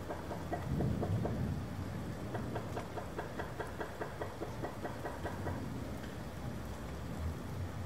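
Steady low rumble of an idling engine, with a quick even ticking of about five a second, mixed with rain. A deeper swell of rumble comes about a second in.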